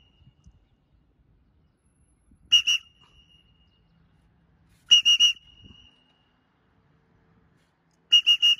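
Sharp, high-pitched recall whistle blown in three short groups of two or three quick pips, to call a free-flying pet macaw back.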